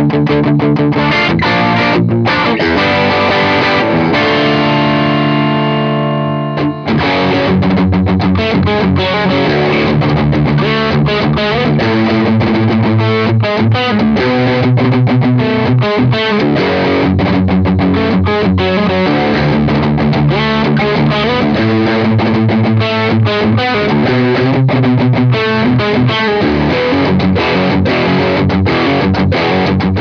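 Electric guitar played through a Fender Super-Sonic 22 tube combo amp, picked up by a microphone at the speaker. A chord is let ring for several seconds and cut off about seven seconds in, then riffs and chords are played steadily through to the end.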